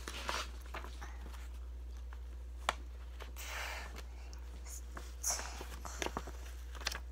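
Faint handling noises from a paper craft being moved about close to the microphone: scattered rustles and clicks, with one sharp click a little before the middle. A couple of breathy rushes are heard over a steady low hum.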